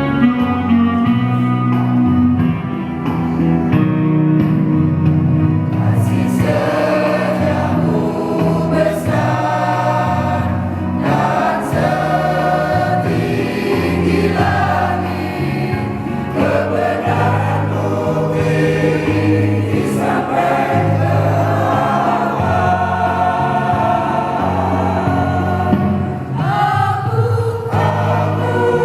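A church choir singing a hymn in parts, with instrumental accompaniment underneath.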